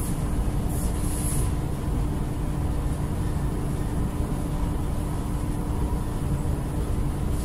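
Steady low rumble of room background noise with a constant low hum, and a brief faint hiss about a second in.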